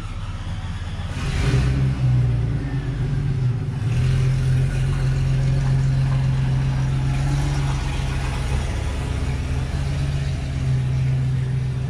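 A motor vehicle's engine running steadily close by, a droning hum that comes in about a second in and holds on.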